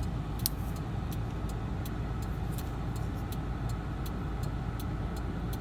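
A steady low rumbling hum with faint, evenly spaced ticks about three times a second, and one sharper click about half a second in.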